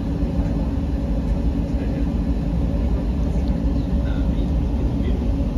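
Diesel-hauled passenger train moving past along the platform: a steady low rumble of the coaches on the track, with the diesel locomotive's engine drone as the locomotive draws level near the end.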